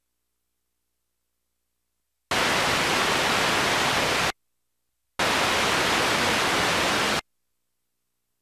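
Two bursts of loud static hiss, each about two seconds long, starting and stopping abruptly with silence between them.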